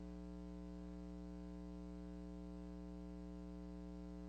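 Steady electrical mains hum with a buzz of overtones over faint hiss, unchanging throughout.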